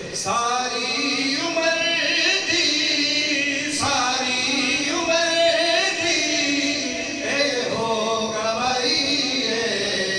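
A man singing a Punjabi devotional kalam (naat) in praise of the Prophet into a microphone, with long held notes that waver and bend in pitch.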